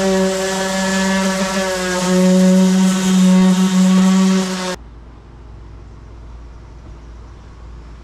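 Orbital sander running, a steady buzzing hum as it sands dried plastic wood filler smooth on a soffit patch; its pitch dips slightly about two seconds in. It cuts off suddenly a little past halfway, leaving a faint low hum.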